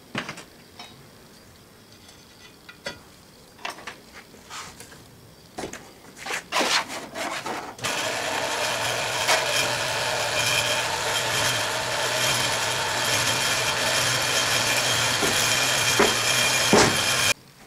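Molding sand being riddled through a wooden-framed riddle screen into a foundry molding flask: a steady rasping of sand rubbed across the screen, starting suddenly about halfway through and cutting off near the end. Before it, a few light knocks as the riddle is handled and set on the flask.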